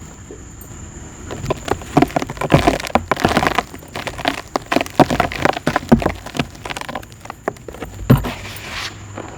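Lumps of black dirt crumbling: a dense run of crisp, gritty crackles and crunches, quieter for the first second or so, with a sharper crack near the end.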